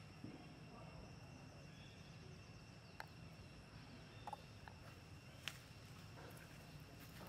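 Near silence: outdoor ambience with a faint steady high insect hum and a few soft scattered clicks.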